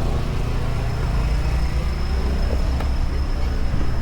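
Low, steady rumble of motor vehicles on a snowy city avenue, with a faint steady high whine above it.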